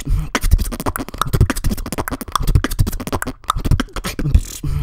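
A human beatboxer performing a fast vocal beat: deep bass kicks under rapid clicks and snares, with a brief break about three and a half seconds in.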